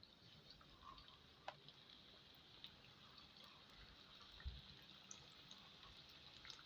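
Samosas deep-frying in a pan of hot oil: a faint, steady sizzle with scattered small pops and crackles.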